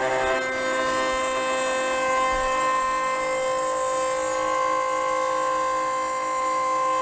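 6040 CNC router spindle running a 6 mm two-flute end mill through 12 mm aluminium plate: a steady, high-pitched whine over the hiss of cutting. The tone shifts slightly about half a second in.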